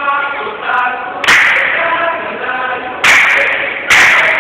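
A dikir barat troupe singing together in chorus, cut by loud unison hand claps: one about a second in, another about three seconds in, and a third near the end.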